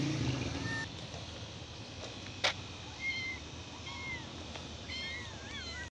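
Kittens mewing: several short, high-pitched mews, coming more often toward the end. There is one sharp click about two and a half seconds in.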